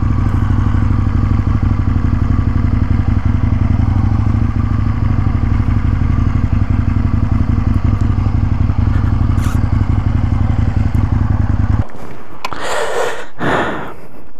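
Aprilia Tuono 1000R's V-twin engine running at low speed as the motorcycle rolls slowly onto gravel, a steady pulsing rumble that cuts off abruptly near the end. A couple of short scraping, rustling noises follow.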